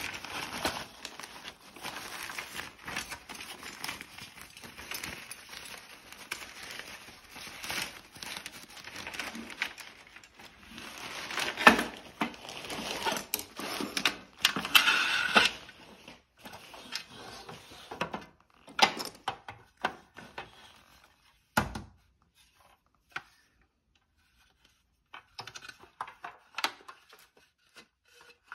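A black carry bag rustling and crinkling as a folding camping table's bundled poles are pulled out of it. After that come scattered clicks and knocks as the poles and the folded tabletop are handled, with one louder knock about two-thirds of the way through.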